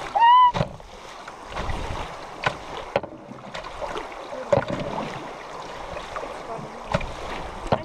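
Wooden canoe moving down a fast river: a steady rush of water along the hull with wind on the microphone, and sharp knocks every second or two from the paddles against the canoe. Right at the start, a short high-pitched cry rises and falls; it is the loudest sound.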